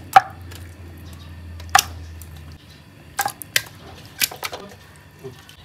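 Marinated chicken pieces laid by hand into an oiled pan: about half a dozen sharp taps and clicks, irregularly spaced, over a low hum that stops about halfway through.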